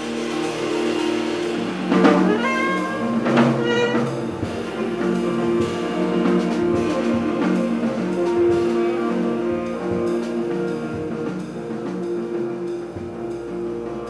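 Small jazz band playing live: drum kit with two cymbal crashes about two and three and a half seconds in, over held chords from guitar, piano and bass.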